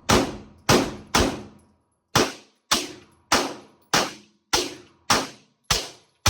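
A rapid string of about eleven gunshots, roughly two a second with a brief pause after the third. Each shot is sharp and trails off briefly.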